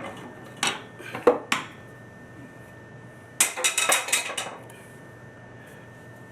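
Sharp metallic clinks: three in the first two seconds, then a rattling clatter lasting about a second, from copper pipe and fittings being handled.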